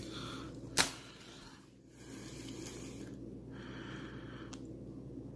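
A single loud, sharp click about a second in and a fainter click near the end, with soft rustling between them over a steady low hum.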